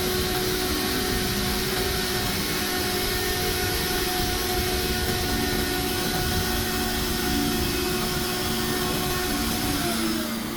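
A woodworking power tool running steadily: a loud, even whirring noise that cuts in and out abruptly.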